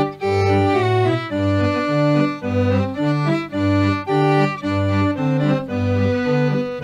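Instrumental introduction to a Tamil Christian hymn played in a sustained organ- or accordion-like keyboard voice, with melody notes held over a steady bass-and-chord accompaniment pulsing about twice a second.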